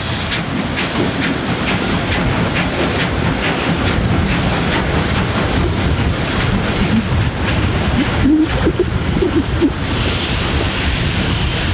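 Train hauled by steam locomotive 50 622 running, heard from the moving train with wind on the microphone: a steady rumble and hiss with regular clicks about twice a second. A few short squeals come about eight to ten seconds in.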